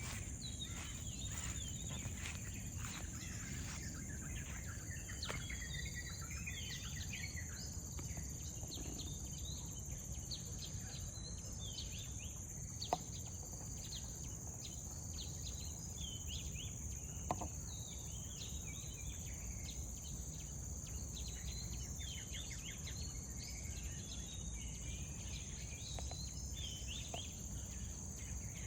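Birds chirping and calling in many short, quick notes over a steady high insect drone, with a low outdoor rumble underneath. Two sharp clicks stand out, about 13 and 17 seconds in.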